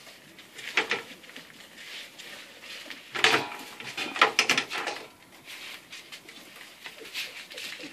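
Broom bristles scraping and brushing across a tiled floor in short bursts while puppies scuffle and tug at the broom head. The loudest scrapes come about three to four and a half seconds in.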